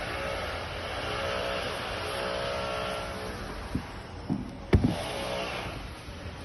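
Handling noise from unboxing a pair of sneakers: a steady rustle with three short knocks in the second half, the sharpest about three quarters of the way through.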